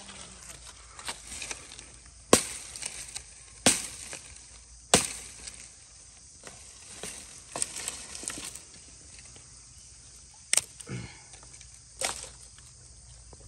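Firewood being broken up: several sharp wooden cracks at irregular intervals, with light rustling and crackling between.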